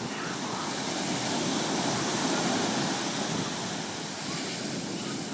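Ocean surf washing in on the beach, a steady rush of water that swells about two seconds in and then eases off, with some wind on the microphone.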